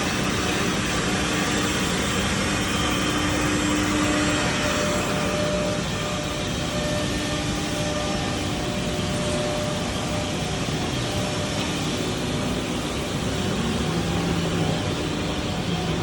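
Multi-head CNC routers running in a factory: a steady, dense mechanical noise with a few faint held tones that come and go.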